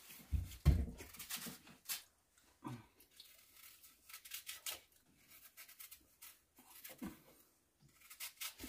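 Eating at a table: a spoon clicks and scrapes irregularly against lacquered bowls, with chewing. A couple of duller thumps come near the start.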